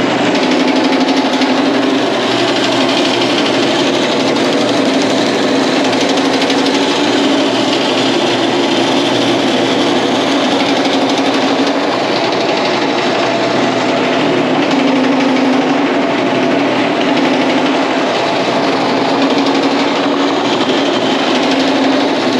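Homemade Pullmax-style power hammer, driven through a salvaged truck rear-axle differential, running steadily with its dies striking rapidly on sheet metal as a dish shape is worked.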